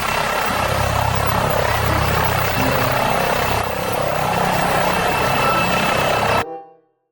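A toy fire-rescue helicopter's electronic sound effect plays a helicopter rotor chop with a steady high whine over it. It cuts off abruptly about six and a half seconds in.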